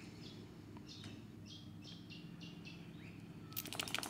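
A bird calling a run of about six short, evenly spaced high notes, followed near the end by a louder burst of rapid clicking or rattling. A faint steady low hum lies underneath.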